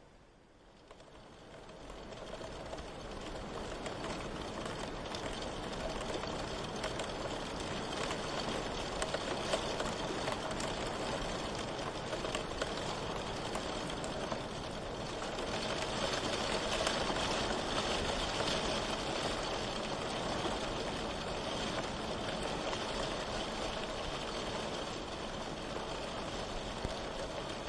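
Steady rain with fine scattered drop patter. It fades in over the first few seconds and grows a little heavier about halfway through.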